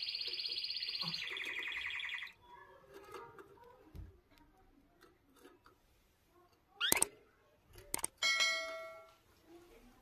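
Canary singing a fast, even trill for about two seconds, its pitch dropping about a second in. Later come quieter scattered chirps, a quick rising sweep about seven seconds in and a held note that fades over about a second.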